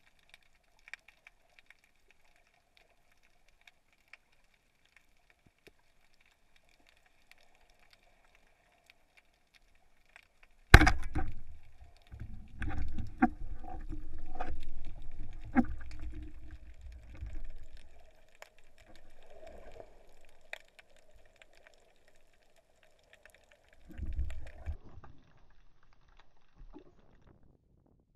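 Underwater sound around a spearfisher: faint scattered clicks and crackle at first, then, about eleven seconds in, one sharp loud bang. After it come several seconds of low rushing water from the diver's movement, and a shorter rush of water a little after halfway through the last third.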